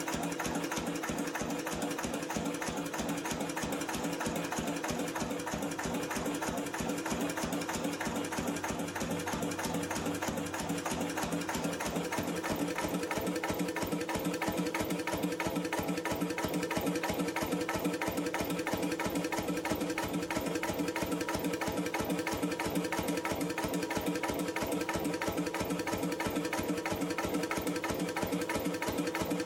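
A 1953 Lister CS 3.5 HP single-cylinder stationary diesel engine running steadily at a constant speed, with a quick, even knocking rhythm.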